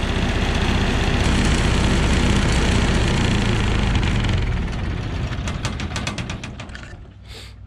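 MEP-802A military diesel generator set running steadily, then shutting down about halfway through: the engine's beats slow, spread apart and die away, stopping near the end.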